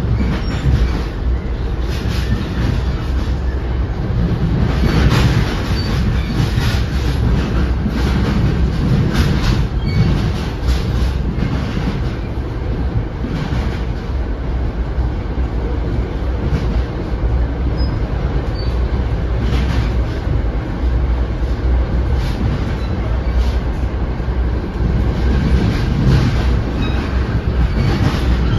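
Interior ride noise of an NJ Transit Comet commuter coach in motion: a steady low rumble of the wheels on the rails, with frequent clacks as the wheels pass over rail joints and switches.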